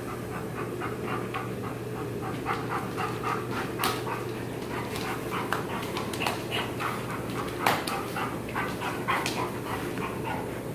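Airedale terrier panting in quick, short breaths while it plays, with a few sharp clicks over a steady low hum.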